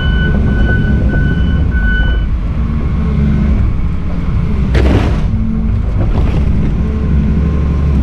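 Volvo EC210CL excavator's diesel engine running steadily under load. A run of short electronic beeps sounds for the first two seconds, and a short burst of noise comes about five seconds in.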